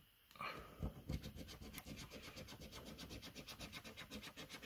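A coin scratching the silver coating off a paper scratchcard, in rapid, even back-and-forth strokes, several a second.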